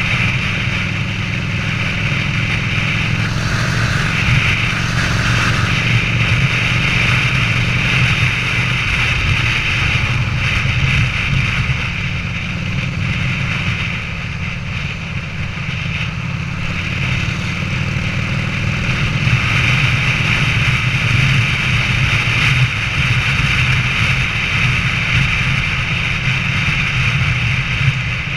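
Harley-Davidson Sportster air-cooled V-twin, bored out to 1250 cc, running at a steady cruise with wind rushing past. The engine eases off briefly about halfway through, then pulls again.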